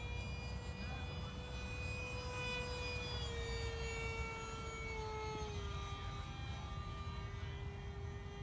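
Electric ducted fan of a Starmax F/A-18 RC jet in flight: a steady high whine that steps down in pitch twice, about three and five and a half seconds in, as the throttle is eased back for landing.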